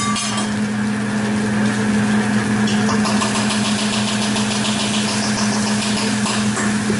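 Fried rice sizzling on a hot steel hibachi griddle, the sizzle growing louder about three seconds in. Under it runs a steady low hum from the grill's exhaust hood.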